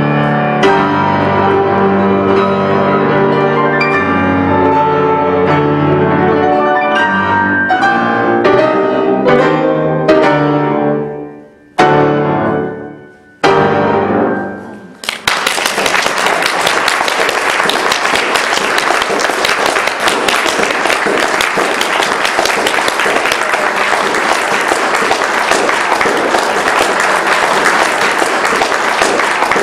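Two grand pianos playing a classical piece that closes on three separate chords, each left to ring out, the last about thirteen seconds in. Then an audience breaks into steady applause.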